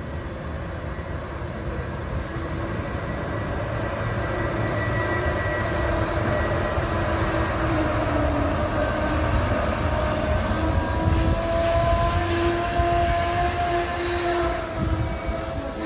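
Czech Railways class 162 electric locomotive hauling a passenger train into the station: a low rumble that grows louder as the train draws past, with steady whining tones over it as it slows for the platform.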